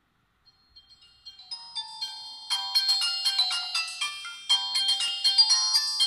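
Siemens SF65 clamshell phone playing a polyphonic ringtone through its small speaker. The tune starts softly about half a second in, gets louder, and from about two and a half seconds runs as a busy melody of several notes at once.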